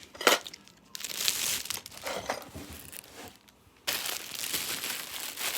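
Thin plastic bag crinkling as a bento box is handled and unwrapped from it, in irregular rustles with a short pause a little past the middle.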